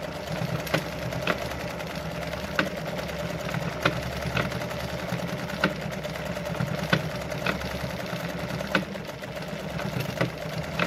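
Brother Pacesetter ZZ2-B702F electric sewing machine running steadily, stitching a decorative pattern through denim. There is a continuous motor hum, with sharp clicks about once a second.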